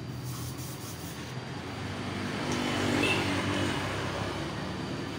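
A motor vehicle engine runs steadily, growing louder to a peak about three seconds in and then easing off, like a vehicle passing by.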